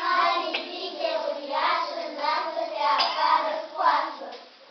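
High voices in a sing-song chant, with a few sharp claps.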